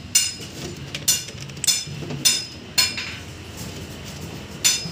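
Sharp metallic clicks, each with a brief ring, coming about every half second for a few seconds, then one more after a pause near the end, over a low background hum.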